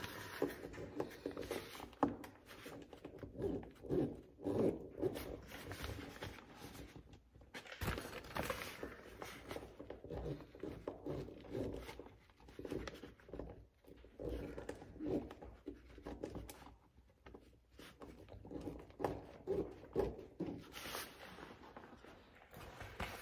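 Uneven rustling and scraping as hands work a fabric door storage bag against the plastic door panel, lining it up and pressing it into place.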